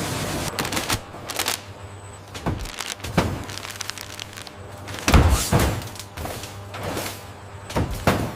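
An irregular series of about a dozen knocks and thuds over a low steady hum, the heaviest about five seconds in.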